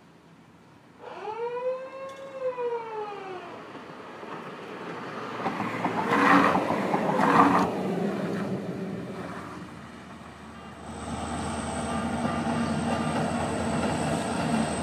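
Freight train on the railroad bridge. A pitched, siren-like tone rises and falls about a second in. Two loud blasts come about six and seven and a half seconds in, and a steady rumble runs through the last few seconds.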